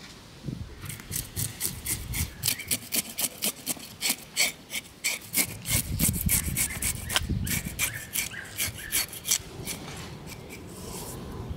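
Knife blade scraping quickly along the skin of a fresh sturgeon on a wooden cutting board, about four short strokes a second. The strokes thin out near the end.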